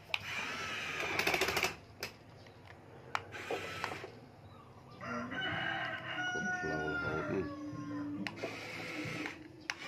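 A rooster crows once, one long call falling slightly in pitch, about halfway through. Before it comes a brief loud rattle, with a few sharp clicks scattered through.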